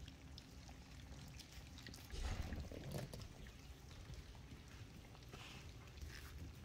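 Puppies lapping and chewing wet mash, faint wet smacking sounds, with a louder scuffling about two seconds in.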